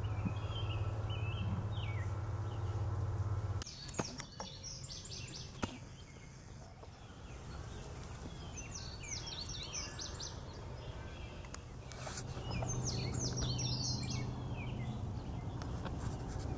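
Small songbirds chirping and singing in quick, high phrases over a steady low hum. The hum cuts off abruptly about three and a half seconds in and returns near the end, with a few sharp clicks in between.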